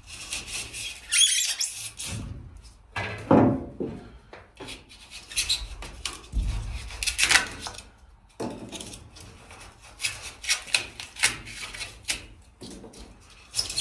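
A long knife blade sawing through sprayed foam insulation in a run of irregular rasping, scraping strokes.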